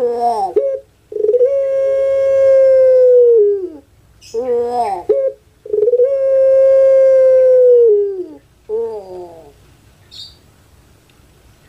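Puter pelung crowing dove (Streptopelia risoria) giving its drawn-out crowing coo. Short falling calls alternate with two long notes, each held steady for over two seconds and then dropping in pitch, until the calling stops about nine and a half seconds in.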